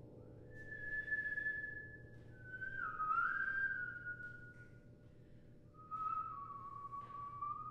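Contemporary chamber music for amplified flute, cello and piano. It is slow and quiet: three long, whistle-like high notes, each bending and sliding down a little lower than the last, over a soft sustained chord.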